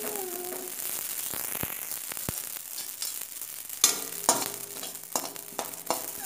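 Amaranth (chaulai) seeds dry-roasting and popping in a hot steel kadhai, a steady crackle of small pops with a spatula scraping through them and a few sharper pops from about four seconds in. The crackle shows the seeds are still puffing: roasting is done when it stops.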